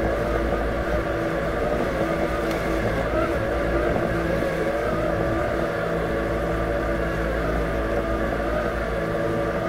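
Robotic lawn mower's electric drive and blade motors running steadily: a constant hum with a whine that wavers slightly in pitch.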